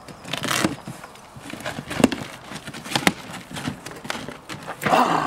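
Cardboard box being opened and unpacked by hand: irregular rustling, crackling and knocking of the cardboard flaps and the plastic wrapping inside, loudest about five seconds in.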